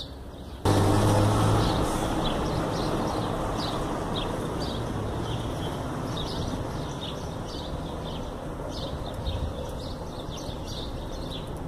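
A steady low rumbling noise, loudest in its first second and slowly fading, with small birds chirping again and again over it.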